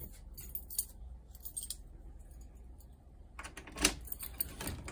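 Dry cat food rattling and clinking into a bowl in several short spells, the loudest a little under four seconds in.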